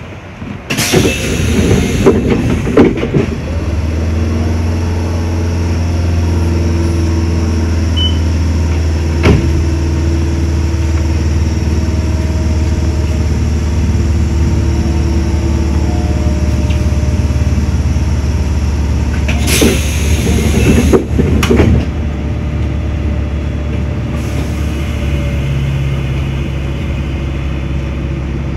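Mizuma Railway electric train under way, with a steady low hum of motors and running gear. Two short, loud bursts of hissing noise come about a second in and again about twenty seconds in.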